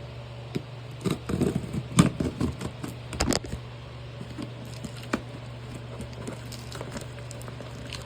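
Cardboard shipping box being handled and opened: a busy run of scraping, crackling and knocking about a second in, lasting a couple of seconds, then scattered light clicks and taps.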